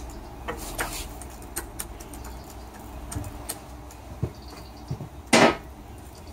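Scattered clicks and knocks of metal bicycle parts and tools being handled as a wheel is refitted into the frame, with one louder clatter about five seconds in.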